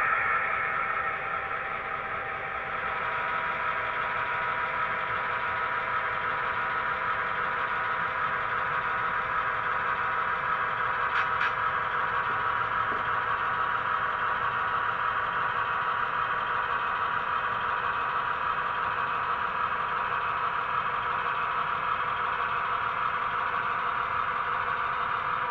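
Sound-equipped model Conrail diesel locomotive playing a steady diesel engine sound through its onboard speaker as it creeps along the track. A faint click about eleven seconds in.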